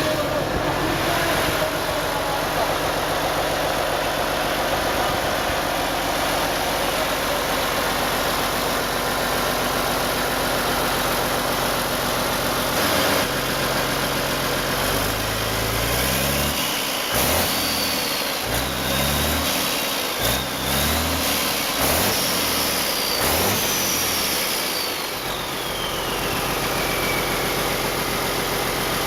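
An old engine running steadily at idle, then revved up and down several times over about ten seconds, with a high whine that climbs and then slides down, before settling back to idle.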